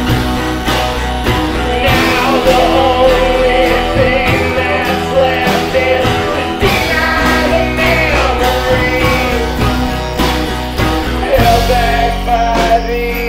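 Music: a song with a singing voice over instruments, including guitar.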